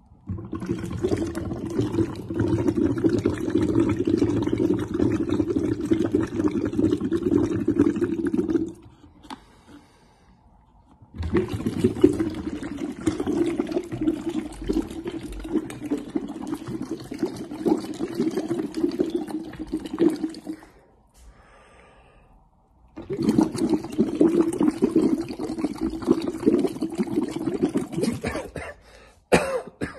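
Breath blown through a plastic tube into water, bubbling steadily in three long exhalations with short pauses between: a blow-bottle breathing exercise for the lungs.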